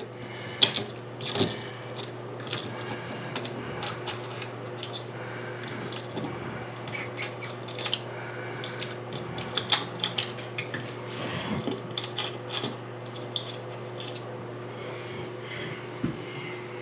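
Small faucet cartridge parts clicking and clinking as they are handled and worked out of the faucet by hand, a scatter of light knocks with a few sharper ones, over a steady low hum.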